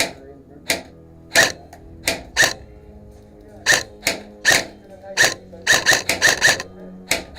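Airsoft rifle firing single shots, about fourteen sharp cracks at an uneven pace, some bunched close together past the middle.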